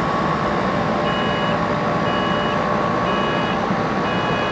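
A parked car's electronic warning beeps, evenly spaced at about one a second, each about half a second long: a keyless-entry or alarm warning left sounding. Under it is a steady mechanical hiss.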